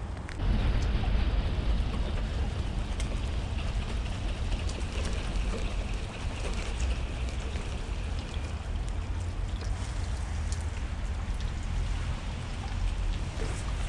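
Rain falling, with scattered drop ticks, over a strong low rumble of wind on the microphone. The whole sound gets louder about half a second in.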